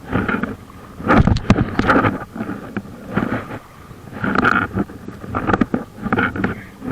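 Packraft paddle strokes splashing in the water, about one stroke a second, with wind buffeting the microphone.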